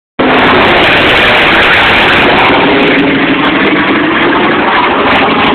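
Engine of a low-flying firefighting airplane, a loud steady drone with a constant low hum.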